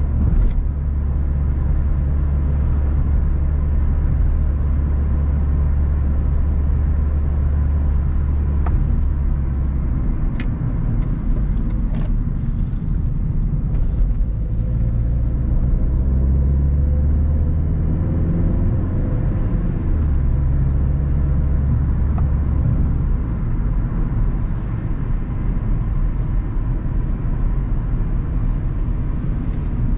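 A car driving, with steady engine and road rumble. The engine note rises about halfway through as it accelerates, and a few sharp clicks come through about ten seconds in.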